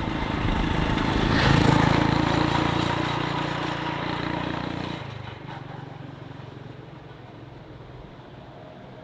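Small motorbike engine passing close by, loudest about two seconds in and then fading as it rides off. About five seconds in the sound drops suddenly to a faint, distant engine hum.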